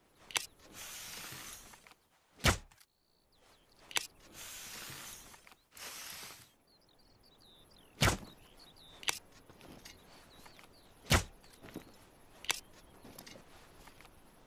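Compound bow shots: three loud, sharp release snaps a few seconds apart, with lighter clicks and stretches of hissing noise between them.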